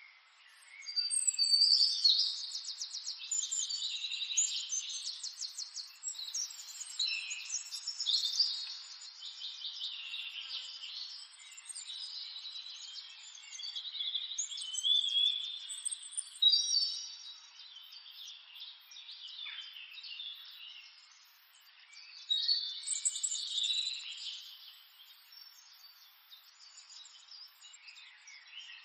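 Small birds chirping and singing in high, quick trills and short calls that come in bouts, busiest shortly after the start and again in the middle and later on.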